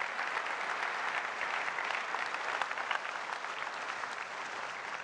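Large audience applauding, dense clapping that tapers off near the end.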